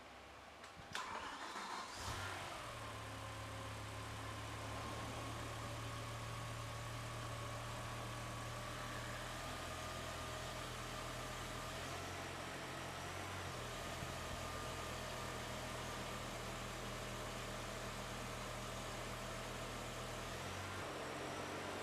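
BMW E60 M5's V10 engine starting: cranked about a second in, catching about two seconds in, then idling steadily with a whining tone that settles in pitch.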